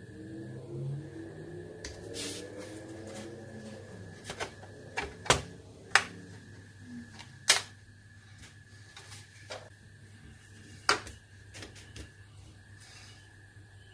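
Sharp clicks and taps of small modelling tools and plastic parts being handled on a workbench, a handful of louder ones spread through the middle, over a faint steady high whine.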